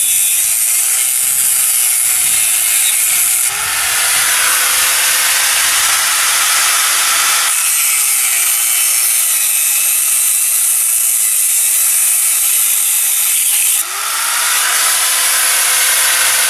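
Iskra BK 850-125 angle grinder (850 W, 125 mm disc) cutting steel pipe: a loud, high grinding hiss over the motor's whine, which sags in pitch while the disc bites into the metal. The grinding eases and the motor climbs back to a steady whine twice, a few seconds in and again about three-quarters of the way through, then the cutting resumes.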